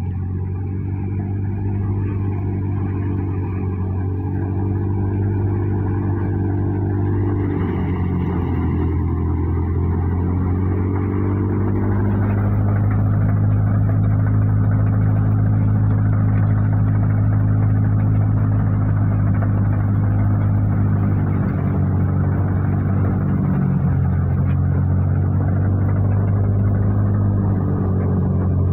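Massey Ferguson 260 tractor's three-cylinder diesel engine running steadily under load, driving a wheat thresher, mixed with the rushing of the thresher's drum and fan as straw and grain pass through. The rushing grows louder about twelve seconds in.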